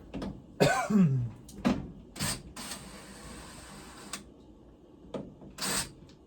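Hands working on a dryer's sheet-metal back panel and its screws: several clicks and knocks, a steady scraping hiss lasting about a second and a half in the middle, and another short scrape near the end. About a second in, a short vocal grunt falls in pitch.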